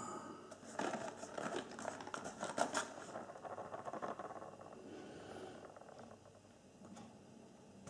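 Small cardboard box being handled and turned over in the hand: a run of light scrapes and taps for about three seconds, then fainter rubbing.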